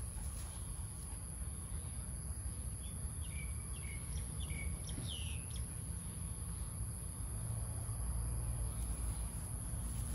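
Steady high-pitched drone of insects, with a few short bird chirps between about three and five seconds in, over a low background rumble.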